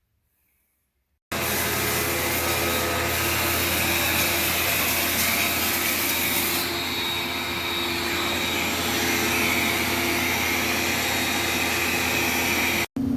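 Vacuum motor running steadily with loud rushing air while the dryer vent pipe is cleaned out. It starts abruptly a little over a second in and stops abruptly near the end.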